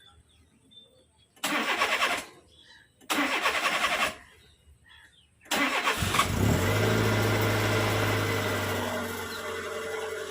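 Car's electric starter cranking in two short bursts, then cranking again until the engine catches about six seconds in and settles into a steady idle that eases down.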